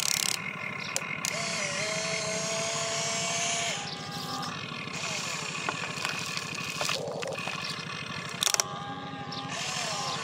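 Electric motors and plastic gearboxes of an RC excavator whining and buzzing as it works its boom and bucket and swings its upper body round, the whine shifting in pitch as each function starts and stops. A few sharp clicks along the way, and a brief cluster of loud knocks about eight and a half seconds in.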